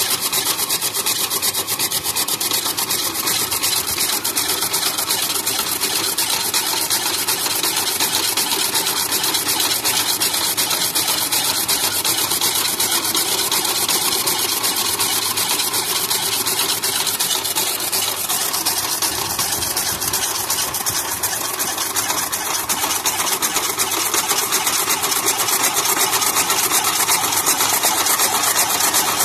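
Chaff cutter driven by an electric motor through a belt and flywheel, chopping dry fodder stalks. It makes a steady, dense mechanical clatter with a rapid, even rhythm, growing a little louder near the end.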